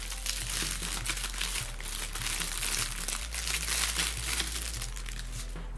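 Thin clear plastic bag crinkling and crackling as hands work a puzzle cube out of it; the crinkling dies away near the end.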